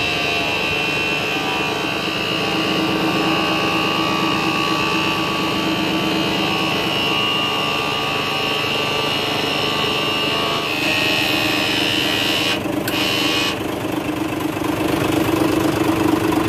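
Isuzu Gigamax truck's 6WF1 inline-six diesel engine idling steadily, growing a little louder near the end.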